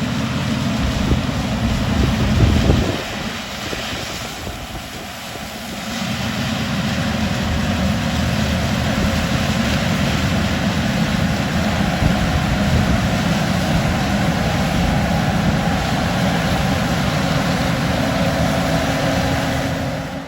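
Heavy farm machinery harvesting corn, running with a steady engine drone. It eases off briefly a few seconds in, then runs on steadily and louder.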